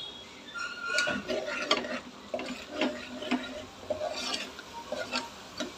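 A steel spoon stirs and scrapes thick masala paste around an aluminium pressure cooker, making irregular clinks and scrapes of metal on metal, with a brief squeaky scrape about a second in. The spice masala sizzles as it fries in oil.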